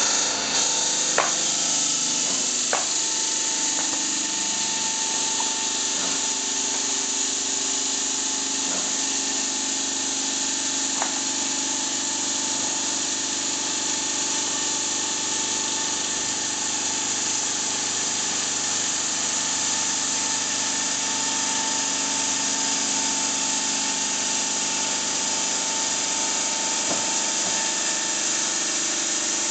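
Bridge saw's large water-cooled circular blade cutting through a stone slab: a steady, high grinding hiss over a constant motor hum, with a few sharp clicks in the first few seconds.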